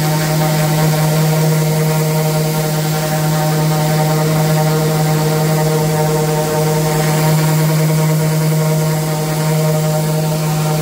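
Electric random orbital sander running at a steady pitch, its spinning pad sanding across a painted MDF panel, giving a constant motor hum.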